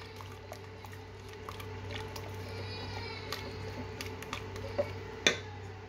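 Wire whisk stirring thin pancake batter in a plastic bowl, with faint light clicks of the wires against the bowl over a steady low hum. A brief high-pitched call sounds in the background about halfway through, and a sharp click comes near the end.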